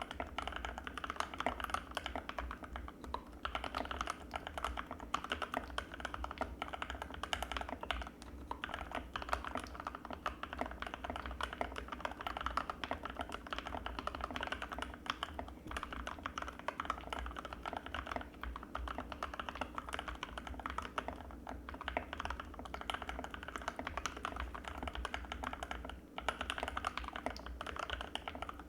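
Continuous rapid typing on an Anne Pro 2 mechanical keyboard with Gateron Red linear switches, a dense stream of keystroke clacks with brief pauses about 8 and 26 seconds in.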